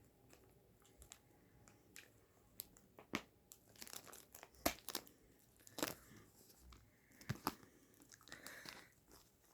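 Packaging wrapping being torn and crinkled as an item is opened: scattered short rustles and sharp crackles, busiest in the middle.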